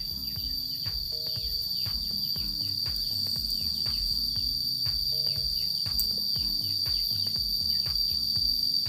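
Steady high-pitched drone of insects such as crickets, with music underneath: a steady low beat about twice a second and short notes that repeat every few seconds.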